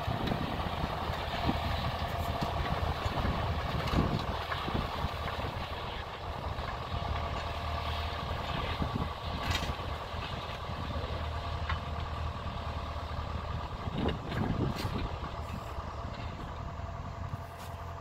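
Tractor diesel engine running steadily under load as it pulls a mounted reversible plough through the soil, growing a little fainter near the end as it moves away.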